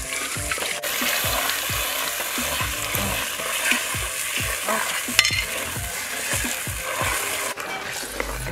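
Tamarind-laced fish gravy sizzling and bubbling in a clay pot as it is stirred with a coconut-shell ladle. Soft low thuds come about twice a second.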